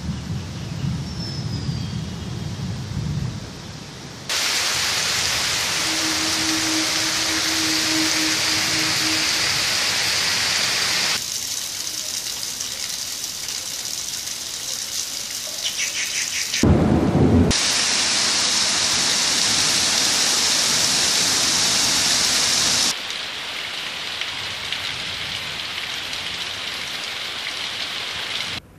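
Heavy rain falling on a pond and on leafy plants, a steady hiss that jumps abruptly louder or quieter several times as clips change. A low rumble runs through the first few seconds, and a brief, loud low rumble comes about seventeen seconds in.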